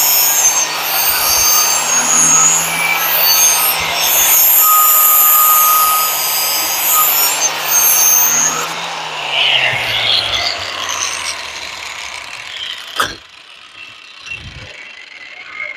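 Angle grinder grinding the cutting edge of a steel lawn mower blade held in a sharpening jig: a loud, gritty grind with high screeching. About nine seconds in, the grinder is switched off and its motor hum falls as it winds down. Then comes a sharp click and a few light knocks as the blade is handled.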